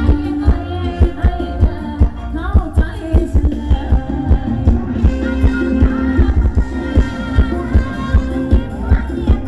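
Thai ramwong dance-band music played by a live band: heavy drum thumps on a steady, fast beat under sustained melody notes.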